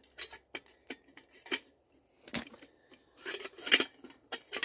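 Lid of a stainless steel camp percolator being fitted and pressed on: scattered light metal clicks and clinks, with a quick cluster about three and a half seconds in.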